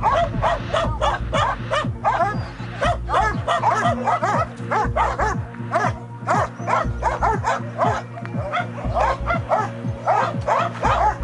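Several dogs barking and yelping at once, in a rapid, continuous volley of short calls, several a second, each falling in pitch.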